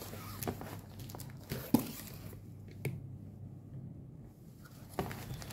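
Paperback manga volumes being handled and moved about in a cardboard box: soft rustling with a few light knocks, the sharpest just under two seconds in.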